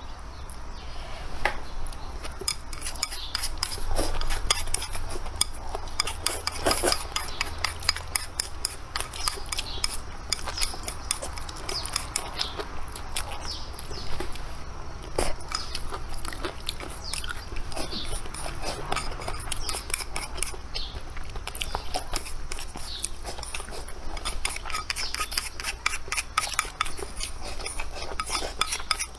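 Chopsticks clicking against bowls and plates during a meal, many small clicks in close succession.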